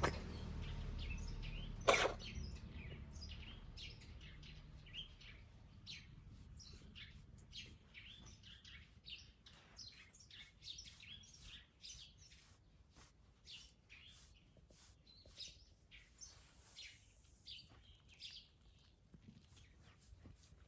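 A cat's coughing-and-sneezing fit gives one sharp, explosive burst about two seconds in. Faint chirping of small birds, in many short quick calls, goes on behind it.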